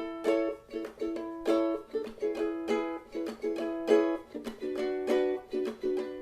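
Ukulele strumming a chord pattern in a steady rhythm, about two strums a second, shifting to a new chord about four and a half seconds in; no singing yet.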